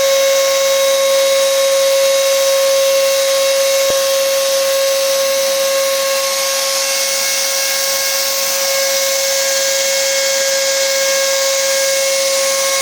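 Wagner electric paint sprayer running and spraying: a steady high whine over a rush of air. Near the end it is switched off and the whine drops in pitch as it winds down.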